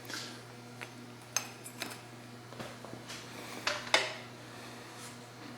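Scattered metallic clinks and knocks as the steel parts of a homemade belt grinder are handled, a few light taps with the loudest knock about four seconds in.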